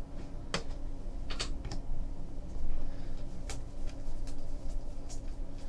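A handful of sharp, irregularly spaced light clicks and taps over a steady low room hum.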